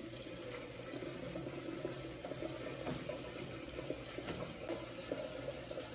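Water running steadily from a tap into a sink, with the scrub of a toothbrush on teeth.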